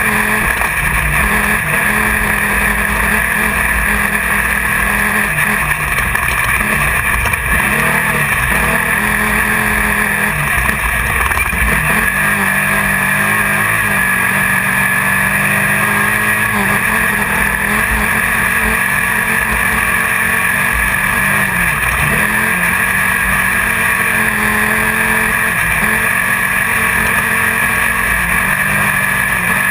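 Class 1600 off-road race buggy's air-cooled VW engine at race pace, heard from inside the car. The engine note rises and falls again and again with the throttle, under a steady rushing noise.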